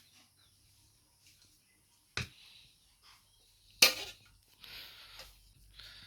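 Two sharp knocks about a second and a half apart, the second the louder, followed by soft rustling.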